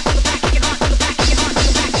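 Electronic dance music with a steady four-on-the-floor kick drum, about two beats a second, under layered synths.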